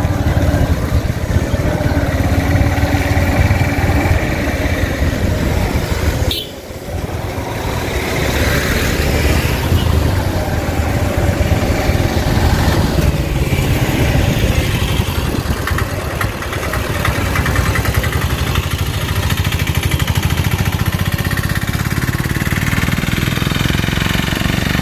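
Engine and road noise heard from a moving vehicle travelling along a wet road: a steady low running rumble under an even hiss. A short sharp break about six seconds in.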